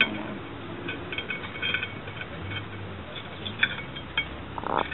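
Stacked ceramic plates clinking against each other as a hand presses on and shifts the top plate: a few light, sharp clinks spread out, with a short scrape near the end.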